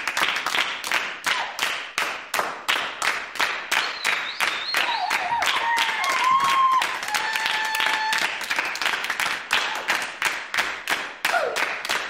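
An audience applauding: many hands clapping densely and unevenly, at a steady level throughout.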